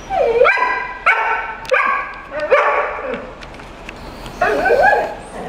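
Dog barking in a run of drawn-out, pitch-bending yelps: about five in the first three seconds, then one more near the end.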